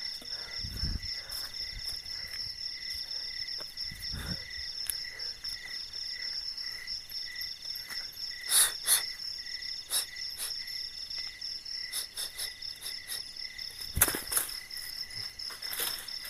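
Crickets chirping in a steady, pulsing chorus at several pitches. A few sharp crackles of footsteps in dry leaf litter break in, the loudest about halfway through and again near the end.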